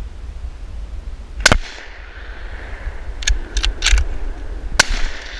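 A scoped hunting rifle fires about a second and a half in, the crack echoing off the hills. A quick run of clicks follows as the rifle is reloaded, then a second sharp crack near the end. Wind rumbles on the microphone throughout.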